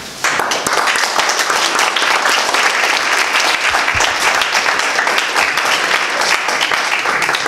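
Audience applauding: many hands clapping, starting suddenly just after the beginning and holding steady throughout.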